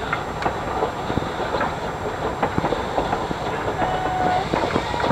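Railway passenger coaches rolling past at close range, their steel wheels clicking and knocking irregularly over the rail joints under a steady rumble, with a short thin squeal about four seconds in.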